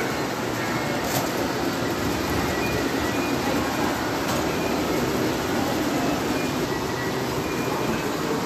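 Model trains running on three-rail O-gauge track: a steady rolling rumble of wheels and motors, with a faint click about a second in and again about four seconds in.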